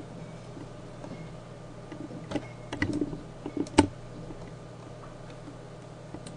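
A handful of computer keyboard and mouse clicks, bunched about two to four seconds in, over a steady low hum.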